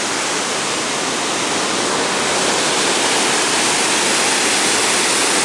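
Dudhsagar Falls in monsoon flood: the steady rush of a large volume of falling water, a dense, even noise that grows a little louder about two seconds in.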